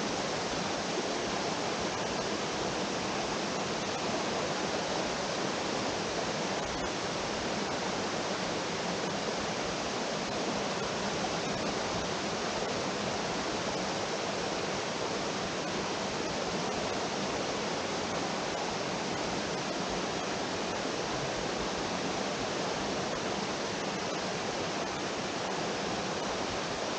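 Steady, unbroken rush of fast-flowing water in a mountain valley stream.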